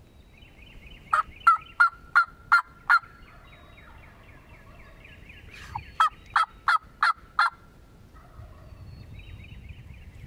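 Turkey yelping: two loud series of short yelps, six notes and then five, about three a second, over faint high bird chatter.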